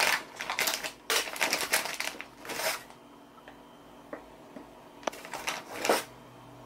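Plastic packaging bag of mini corn dogs crinkling as it is handled, in four bursts of rustling with a quiet gap in the middle.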